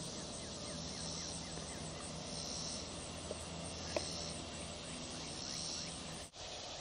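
Lakeside ambience of insects calling in short high buzzes repeating about every second and a half, with quick faint chirps and a steady low hum underneath. One light click about four seconds in.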